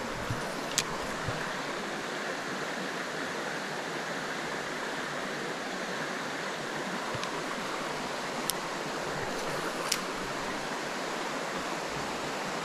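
Steady rushing of a small mountain creek's flowing water, with three brief sharp clicks, one about a second in and two more later on.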